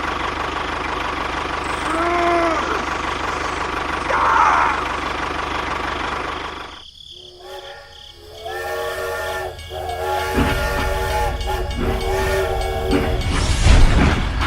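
A steady hiss, then a train whistle sounding in several held blasts from about halfway in, with a low rumble underneath toward the end.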